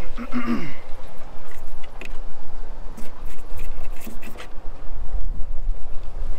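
Plastic-and-metal RVLock keyless entry handle clicking and rattling against the RV door as it is pushed into the lock cutout, a scatter of sharp clicks in the middle seconds and another at the very end, over a steady low rumble.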